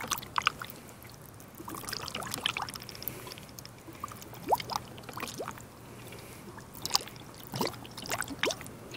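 Red Toyota coolant draining from a funnel into a Prius's cooling system, with scattered gurgles and bubble pops as trapped air burps up through it. Squeezing the radiator hose has broken the air lock that was holding the coolant in the funnel.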